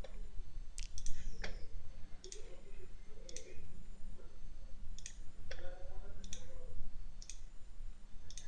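Computer mouse button clicking: single sharp clicks, about six of them, spaced irregularly a second or so apart, over a steady low hum.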